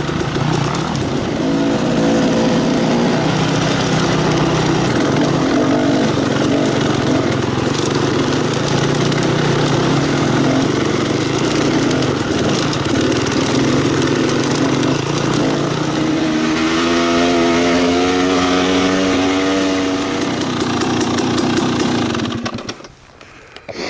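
Two-stroke dirt bike engine running under way, heard close from the rider's own bike. The revs climb a couple of times in the last seconds, then the engine sound drops away sharply about a second before the end as the bike comes to a stop.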